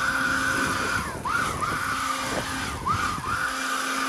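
Ingco cordless leaf blower running at full speed: a high electric-motor whine over a rush of air. Twice the whine drops in pitch and climbs straight back up.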